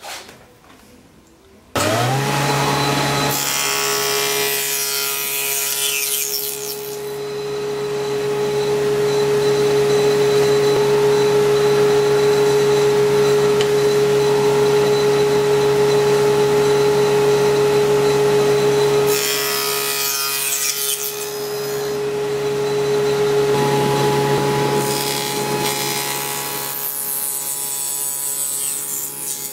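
Table saw motor starting up about two seconds in and running steadily with a humming whine. Its blade cuts a wooden rail at a 45-degree miter with a rasping cutting noise several times: just after start-up, again about two-thirds through, and near the end.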